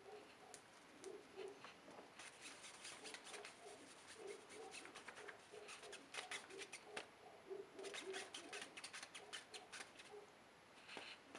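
Faint, rapid clicking and rustling in two runs, the first starting about two seconds in and the second near the end, over an otherwise quiet room.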